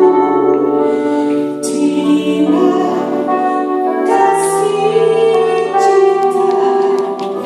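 Music with singing: a voice holding long melodic notes over instrumental accompaniment.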